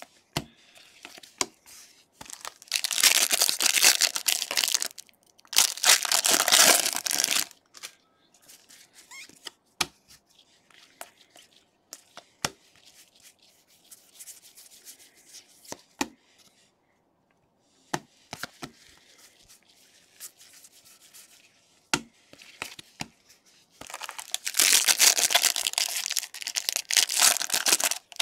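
Trading-card pack wrappers being torn open and crinkled by gloved hands, in three loud bursts: two close together a few seconds in and a longer one near the end. Between them come scattered sharp clicks and light rustling of cards being handled and flipped through.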